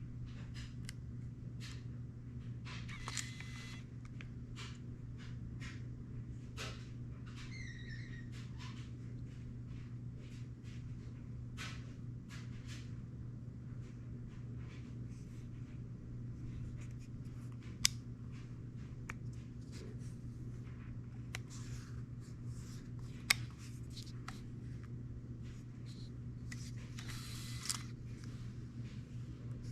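Hands sorting through camera packaging and accessories: scattered light clicks and rustles, with two sharper clicks in the second half and a short squeak of plastic about eight seconds in. A steady low hum runs underneath.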